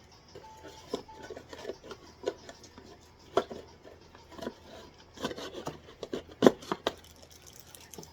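Cardboard and paper packaging being handled: irregular rubbing and scraping with scattered light taps and clicks, the loudest knock about six and a half seconds in.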